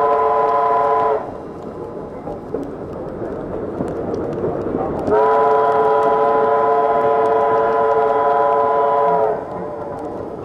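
Chime steam whistle of Baldwin 2-8-0 steam locomotive No. 734, several notes sounding together as one chord. A blast cuts off about a second in, and a second long blast of about four seconds begins around five seconds in. The train's running noise, heard from an open coach window, fills the gaps.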